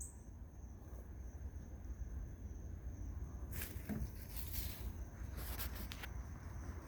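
Faint steady high-pitched trill of crickets, with a few brief rustles between about three and a half and six seconds in.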